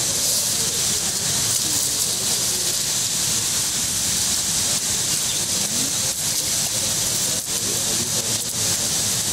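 Steady, even hiss of rushing canal water, with faint voices under it at times.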